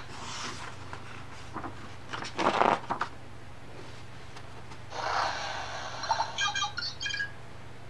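A page of a hardcover picture book turned over with a paper rustle, the loudest sound. About five seconds in, the book's sound-button speaker plays a short clip ending in a few quick high chirps.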